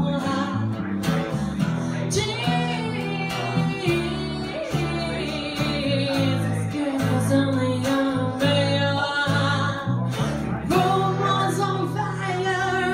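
A woman singing with her own acoustic guitar accompaniment, with an upright bass playing low notes underneath: a live acoustic duo.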